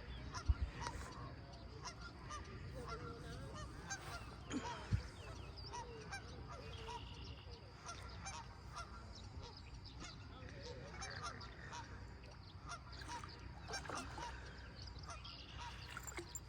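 Geese honking repeatedly and faintly across the water, with a few sharp clicks.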